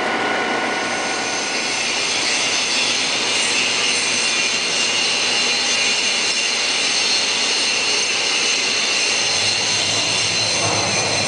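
Cincinnati Gilbert Model J horizontal boring mill running under power: a steady mechanical whine made of several high tones. Its pitch shifts about a second in, and a lower hum joins near the end.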